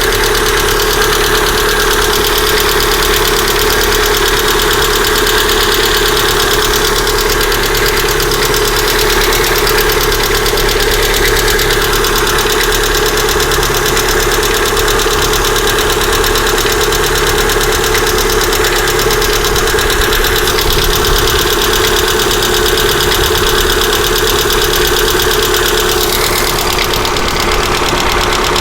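Lada Vesta's 1.6-litre four-cylinder engine idling steadily with a fast, even ticking from the valve train: the knock of faulty hydraulic lifters.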